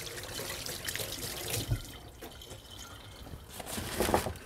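Kitchen sink tap running as hands are rinsed under it, with a few louder knocks near the end.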